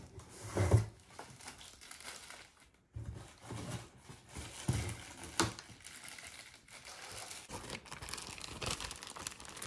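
Clear plastic bag crinkling and a cardboard TV carton being handled during unpacking, with several dull thumps against the box, the loudest about a second in.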